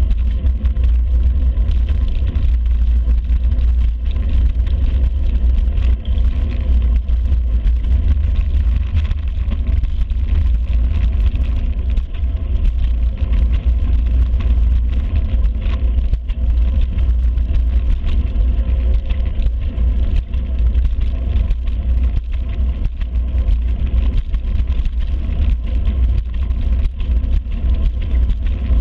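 Steady low rumble of wind buffeting a bicycle-mounted camera's microphone while riding, mixed with road and tyre noise.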